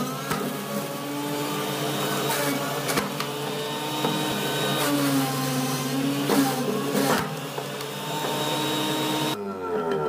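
Electric juicer motor running while juicing carrots, its pitch sagging and rising again as the load changes, with a few sharp knocks.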